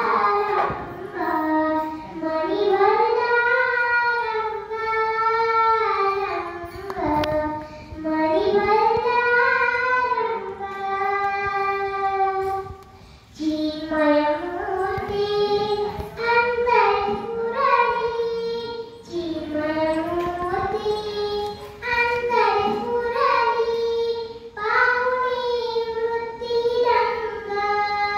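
A young girl singing a Marathi devotional pada (verse) from a book, in long melodic phrases with held, gliding notes and short breaths between them, with a brief pause about 13 seconds in.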